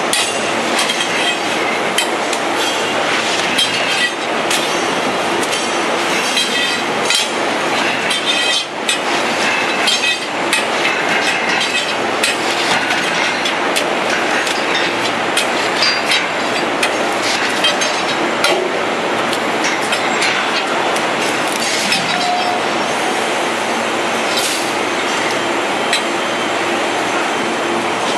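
Loud, steady machine noise with frequent metallic clinks and knocks as plywood sheets are handled between the metal platens of a 15-opening plywood hot press.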